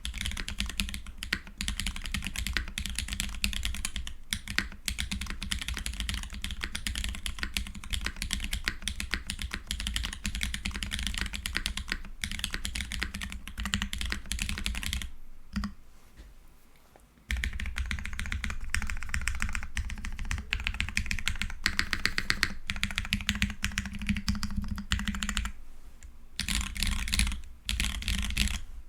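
Typing on a Keycult No. 1/60 custom keyboard fitted with Holy Polar Panda tactile switches: fast, continuous keystrokes, with a pause of about two seconds around the middle and a brief one near the end.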